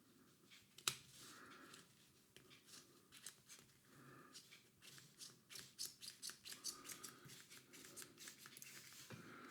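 Faint handling of a field-stripped Glock 17 Gen 4 BB pistol's parts while they are smeared with Vaseline: small clicks and rubbing scrapes, with one sharper click about a second in.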